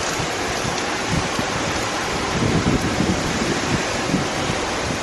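Staubbach Falls up close: a steady, dense rush of falling water and spray, with wind buffeting the microphone.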